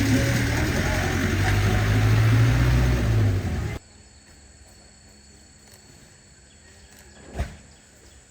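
A truck engine running with a steady low hum, cutting off abruptly a little under four seconds in. After that there is quiet outdoor background with a single thump near the end.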